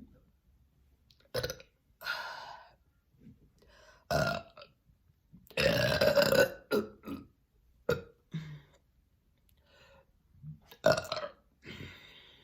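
A person burping on command, a string of separate burps with short pauses between. The longest and loudest burp comes about halfway through.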